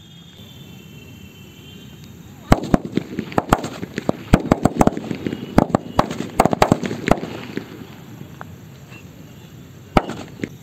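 A string of large 50 Deluxe bijli firecrackers going off: a rapid, irregular run of sharp bangs starting about two and a half seconds in, thinning out after about seven seconds, with a few more bangs near the end.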